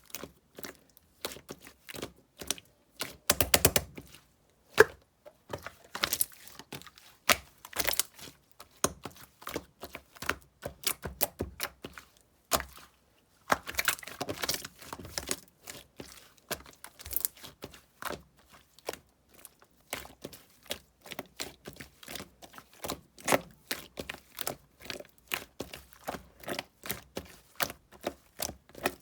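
Clear slime mixed with clay being squished and pressed by hand, making dense, irregular sticky clicks and small pops, with louder crackly flurries a few seconds in and again about halfway through.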